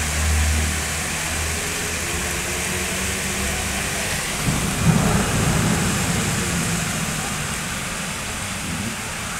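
Steady rain hissing over a city street during a thunderstorm, with a low rumble of thunder about five seconds in.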